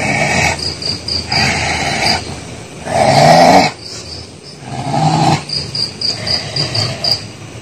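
A man growling and roaring in loud hoarse bursts, about one every second and a half, the loudest about three seconds in, in the manner of a person taken to be possessed by a jinn. Crickets chirp in short quick runs between the bursts.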